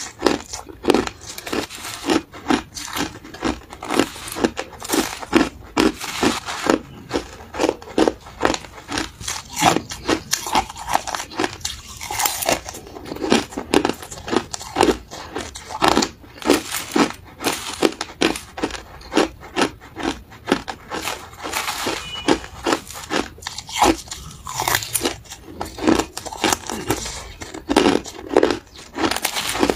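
Crushed ice crunching between the teeth as it is chewed mouthful after mouthful, in quick sharp crunches about two or three a second.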